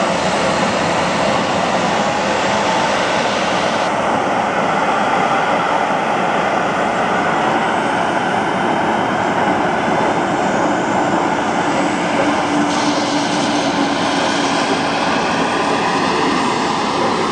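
Jet engines of Blue Angels F/A-18 Hornets running on the ground: a steady, loud rush of noise with a faint whine.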